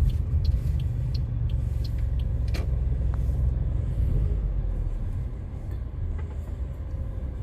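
Car driving slowly, its engine and tyre noise a steady low rumble inside the cabin, with light ticks over the first few seconds and a sharper click about two and a half seconds in.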